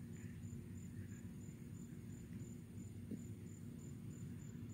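Faint insect chirping, an even high chirp about three times a second, over a low steady rumble.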